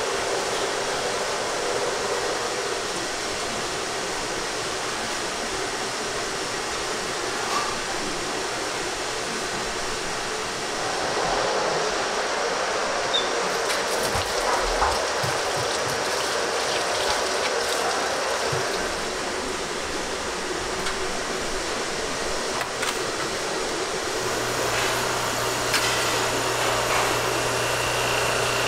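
Steady rushing background noise of a commercial kitchen, with the sounds of a raw duck being rinsed and handled in a stainless steel sink partway through. A low steady hum comes in near the end.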